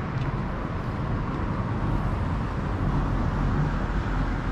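Steady road traffic noise from passing cars, a continuous rushing hum with no distinct events.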